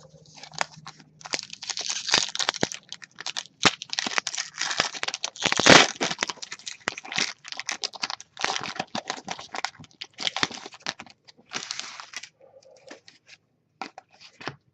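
Foil wrapper of a hockey card pack being torn open and crinkled: a dense, irregular crackle with sharp clicks, loudest a little before the middle.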